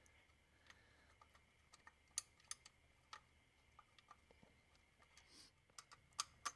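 Faint, scattered small clicks and taps of hand work: small screws and a screwdriver being fitted as a new MAP sensor is fastened into its plastic mount. A few sharper ticks stand out about two seconds in and near the end.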